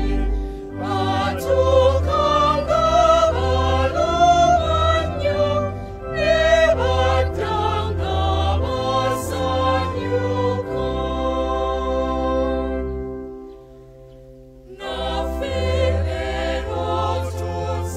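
Background music with a choir singing over a low bass line. It dies away briefly about thirteen seconds in, then comes back.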